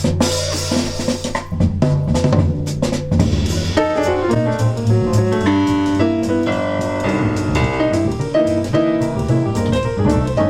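Jazz music: a drum kit with bass, joined about four seconds in by a melodic instrument playing a quick line of notes.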